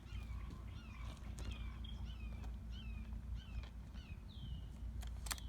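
A bird calling with a run of short, downward-sliding chirps, one or two a second, over a steady low background rumble. Two sharp clicks come near the end.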